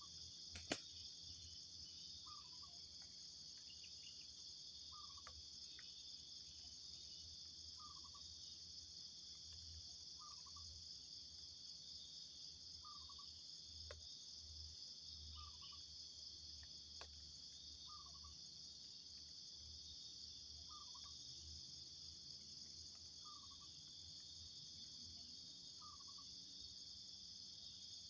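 Faint, steady high-pitched insect drone, with a short call repeating about every two and a half seconds and a single sharp click about a second in.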